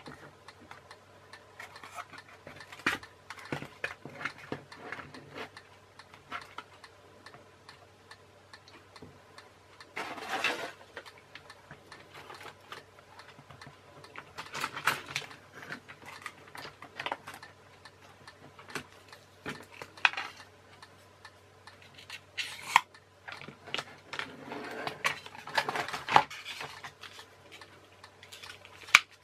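Scattered clicks, taps and scuffs of plastic RC car parts and a plastic toy truck body being handled and hot-glued, with a few short rustling or scraping bursts, over a steady low hum.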